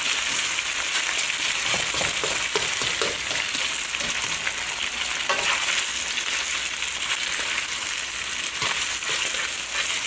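Pork slices and two eggs sizzling steadily in hot oil in a nonstick wok while the eggs set, with a slotted spatula scraping and stirring through them now and then.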